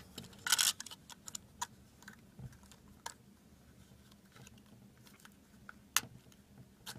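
Plastic attachment comb being slid onto the blade of a switched-off Moser 1400 hair clipper: a brief scraping rustle about half a second in, then scattered light plastic clicks, with a sharper click near the end.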